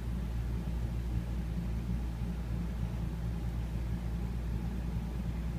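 Steady low electrical hum with faint hiss, and no distinct events such as dice or clicks.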